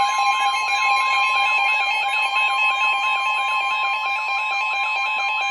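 Emergency Alert System attention signal: a loud, steady two-tone alarm with a warbling sweep repeating several times a second over it. It announces an incoming severe thunderstorm warning.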